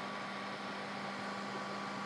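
Steady whirring hiss with a low hum, the sound of desktop computer fans running, with no other events.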